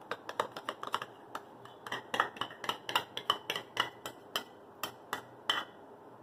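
Metal spoon scraping and clinking against a small steel bowl, a quick irregular run of short clinks as thick mango puree is emptied out of it.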